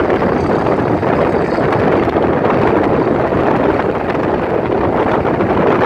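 Steady, loud highway driving noise heard from inside a moving car: road and wind noise mixed with the engines of a large pack of motorcycles riding ahead.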